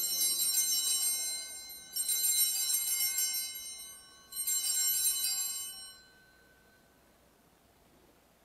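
Altar bells (sanctus bells) rung three times at the elevation of the host during the consecration. Each ring is a bright, high, shimmering jingle of about two seconds, and the last dies away about six seconds in.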